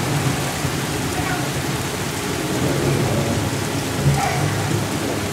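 Heavy downpour: rain pouring onto the street and pavement in a steady hiss, with a low rumble underneath.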